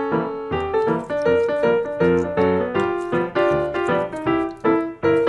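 Background keyboard music: a light piano melody of separate notes, about three a second, each note struck and fading.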